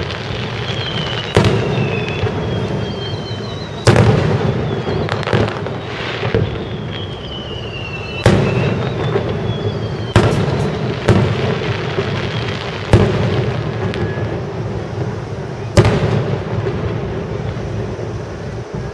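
Aerial firework shells bursting: a string of sharp booms one to three seconds apart, each trailing off into a rumble, with a few thin falling whistles between them.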